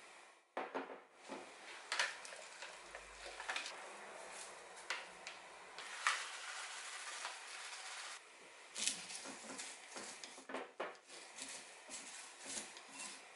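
Greens being tossed and mixed in a glass bowl, by hand and then with chopsticks: scattered light clicks and rustles, with chopsticks tapping the glass near the end.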